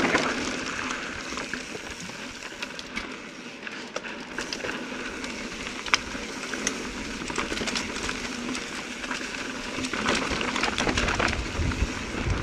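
Mountain bike rolling over rocky ground: tyres crunching over rock and grit with frequent clicks and rattles from the bike. It gets louder about ten seconds in.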